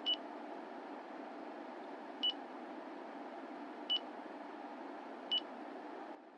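Split air conditioner's indoor unit beeping four times, short high beeps about one to two seconds apart, each acknowledging a remote press that lowers the set temperature a degree. A steady low hum runs underneath and stops near the end.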